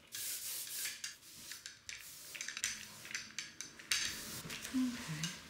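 Hand brayer rolling back and forth through tacky ink on a plastic printing plate, a run of sticky, hissing strokes.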